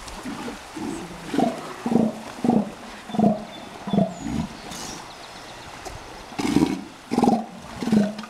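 Juvenile northern elephant seals calling: a run of short, low calls about every half second, a pause, then three more, the first of them longer.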